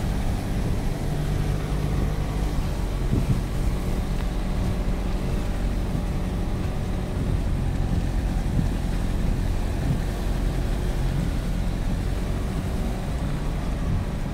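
Vehicle engine running steadily on the move, a low even drone heard from inside the vehicle.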